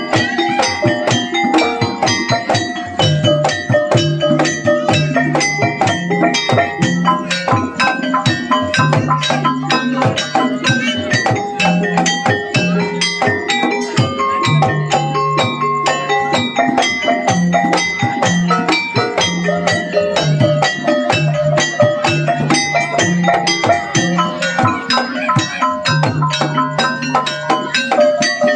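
Gamelan music for a kuda kepang dance: rapid, steady drum strokes over repeating notes of struck metal gongs and metallophones.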